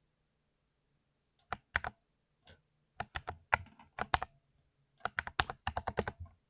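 Typing on a 60% mechanical keyboard with tactile switches: sharp keystroke clicks come in short, uneven bursts after about a second and a half of quiet, quickening into a fast run near the end.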